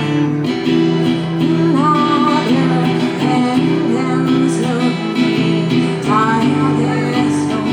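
Acoustic guitar strummed in steady chords, with a voice singing over it.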